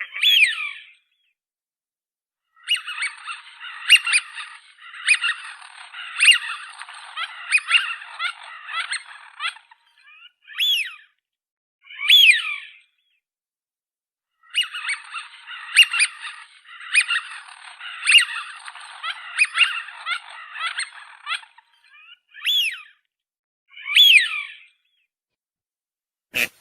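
Birds chirping: two long stretches of rapid, overlapping high chirps, with single downward-sweeping calls in the gaps between them.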